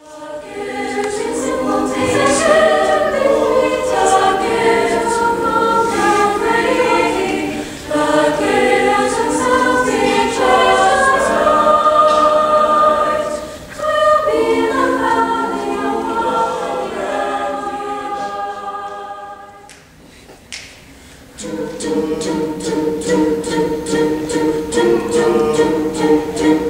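Mixed high school a cappella choir singing in close harmony, voices only. After a brief pause near the end, a new section starts: a held chord over a quick, regular percussive beat.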